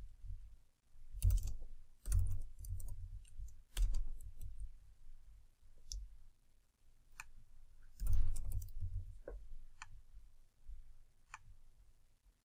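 Typing on a computer keyboard: scattered key clicks in short, irregular runs separated by pauses, some with a dull thud underneath.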